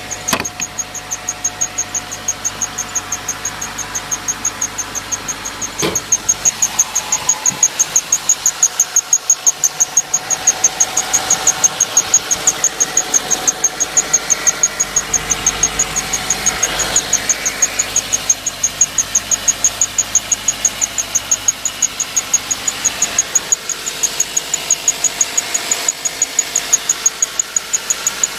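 Subaru Levorg 1.6-litre turbocharged flat-four engine running just after a start, with a high-pitched chirp that pulses evenly several times a second: the abnormal noise this engine has made right after starting since it was new. A single sharp click about six seconds in.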